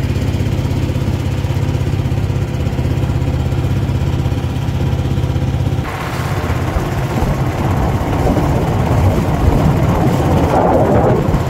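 Small fishing boat's pull-start engine running steadily under way. About six seconds in the sound turns rougher, with water rushing past the hull and wind over the engine.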